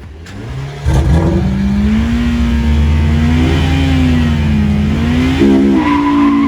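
Car engine revving hard for a rolling burnout: the revs climb sharply about a second in and are held high, the pitch wavering up and down, then shift near the end.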